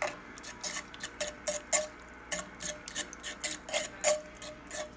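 Metal fork clinking and scraping against a skillet, whisking flour and milk into the pan drippings to make gravy. Quick, uneven clinks, several a second, each with a short metallic ring.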